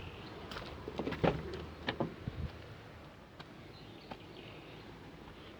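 A few clicks and knocks from the Toyota Voxy minivan, the loudest about a second in, as its engine is being started, then a faint steady sound.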